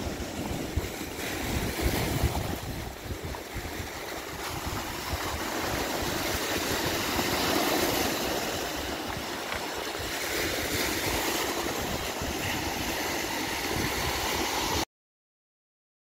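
Surf of a slightly rough sea breaking and washing in foam over a pebble beach and around rocks, a steady rush that swells and eases, with wind buffeting the microphone. The sound cuts off suddenly near the end.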